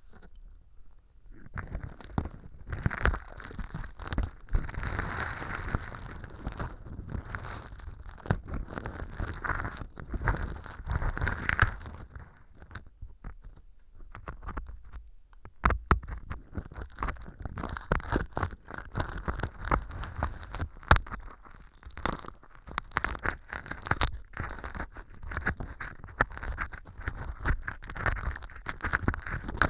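Stainless earpick scraping and picking at fake earwax made of styrofoam powder and sawdust inside a clear ear-canal model, close to the microphone: dense, irregular crackling and scratching. It eases off about halfway through, then starts again with a sharp click.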